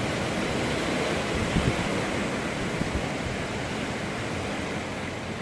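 Hurricane wind blowing steadily as a dense hiss, with a few low gusts buffeting the microphone about one and a half to three seconds in.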